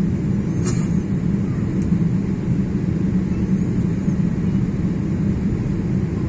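Steady low roar of a jet airliner's engines and airflow heard inside the passenger cabin in flight, with one brief click under a second in.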